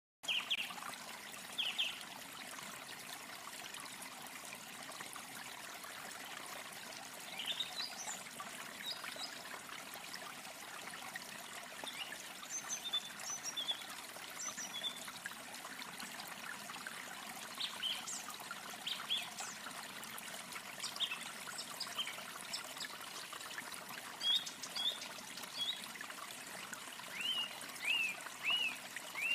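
Steady running water, like a stream, with birds chirping now and then above it; near the end a bird gives a quick run of about five short, repeated chirps.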